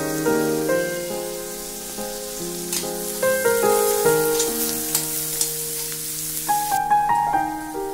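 Curry leaves and green chillies sizzling in hot coconut oil in a stainless steel pan, stirred with a metal spoon with a few sharp clicks; the sizzle cuts off abruptly near the end. Background music with a melody plays throughout and is louder than the frying.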